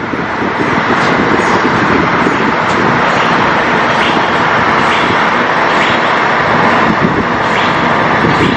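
Steady loud noise of road traffic, a continuous wash of passing vehicles without breaks.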